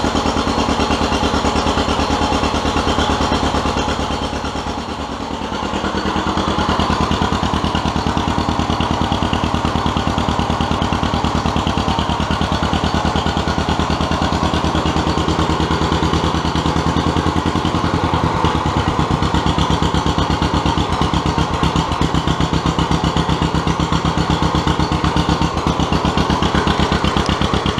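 John Deere MC crawler's two-cylinder engine running steadily on its first run after being freed from a seizure, its valve cover off. The engine sags briefly about five seconds in, then picks back up. It is slightly out of tune, with the carburetor not yet cleaned.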